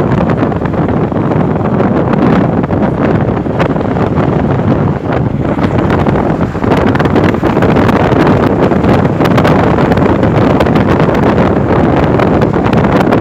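Loud wind rushing and buffeting the microphone at a moving car's window, over the road noise of the car driving at highway speed.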